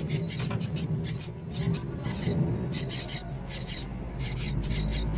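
Myna nestlings begging for food: rapid, high-pitched squeaky calls, several short ones a second, over a low steady rumble.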